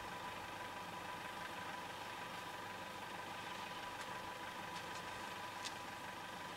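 Car engine idling steadily, with a few faint, short high ticks about four and six seconds in.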